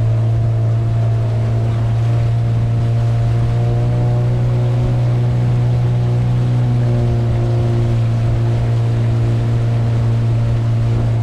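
Motor canoe's engine running steadily at cruising speed, an even low drone.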